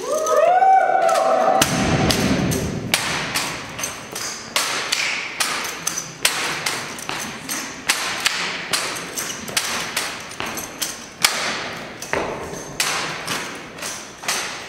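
A long drawn-out shouted drill command, then a run of sharp slaps and thuds as two cadets spin, catch and slap their drill rifles and stamp and step in an armed tandem drill routine.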